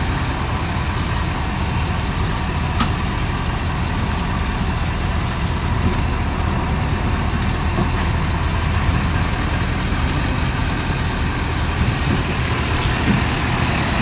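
Ford F-350 Super Duty's Power Stroke diesel engine running steadily at low revs as the truck slowly reverses a fifth-wheel trailer. There is a faint click about three seconds in.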